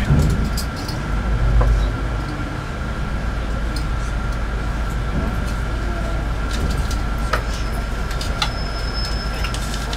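Bus engine running with a steady low rumble, heard from inside the cabin as the bus creeps along a ferry's vehicle deck, with a thin steady high whine and scattered light ticks and rattles.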